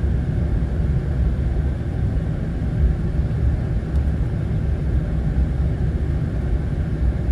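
Steady low rumble of a vehicle driving, engine and road noise heard from inside the cab.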